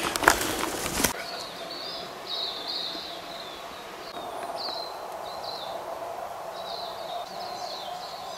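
For about the first second, loud rustling and brushing of people pushing through undergrowth. Then it drops suddenly to quiet bush, with small birds giving short, high chirps again and again over a faint steady hum.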